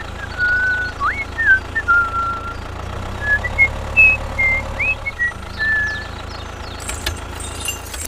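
Tractor engine running steadily as a low rumble, a little stronger in the middle, with short bird chirps and whistles scattered over it.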